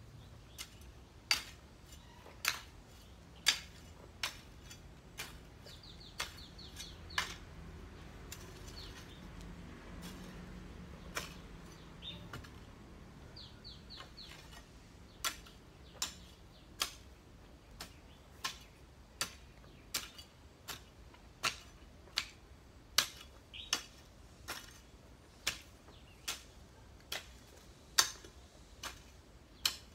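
A long-handled garden hoe chopping into soil: sharp, regular strikes about once every three-quarters of a second, easing off in the middle and then picking up again. A small bird chirps in quick little runs a few times.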